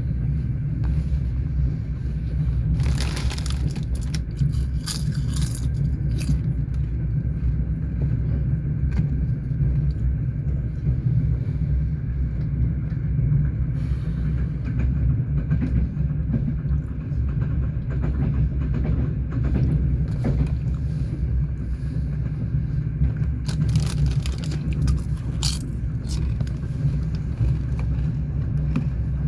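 Passenger train running on the rails: a steady low rumble of the moving carriage, with two clusters of sharp wheel clacks, a few seconds in and again near the end, as the wheels pass over rail joints.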